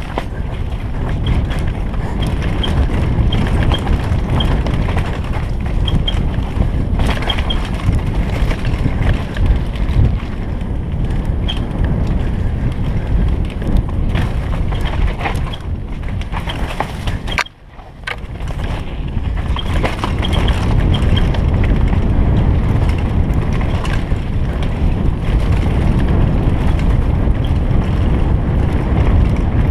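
Wind buffeting a helmet-mounted camera's microphone and the rattle of a downhill mountain bike running fast over a rough dirt trail: a steady loud rush with scattered clicks and knocks, easing off briefly a little past halfway.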